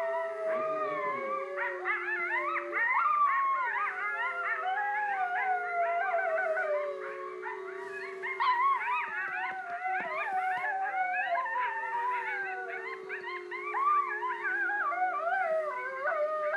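Several canines howling together in a chorus: many overlapping wavering howls, a long low one held beneath higher warbling ones.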